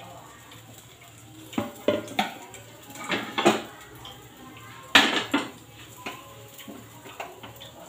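Dish clatter: a string of short clinks and knocks from a plate being handled, the loudest about five seconds in.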